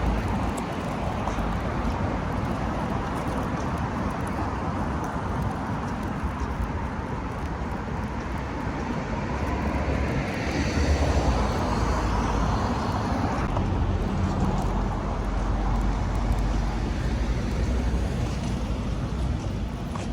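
Street traffic ambience: a steady wash of road noise and engine rumble, with one vehicle passing more loudly about ten seconds in that falls away a few seconds later.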